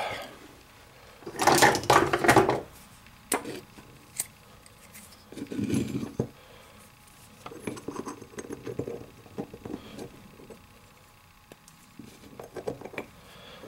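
Small steel rifle-action parts and pins being fitted together by hand on a wooden board: scattered clinks and taps of metal on metal and on wood. The loudest cluster of clicks comes about two seconds in, with further bursts near four, six and thirteen seconds.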